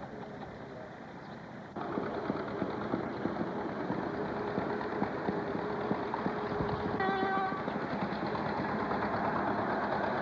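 Railroad motorcar's two-cycle engine running with a rapid firing beat, suddenly louder about two seconds in. A brief high-pitched tone sounds about seven seconds in.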